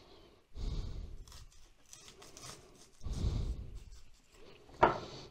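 An onion being cut with a knife and its layers pulled apart by hand, with a sharp knock near the end.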